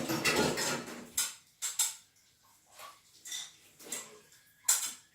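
Hard household objects, likely containers, being handled and set down: a rushing noise in the first second, then a string of irregular knocks and clatters, the loudest shortly before the end.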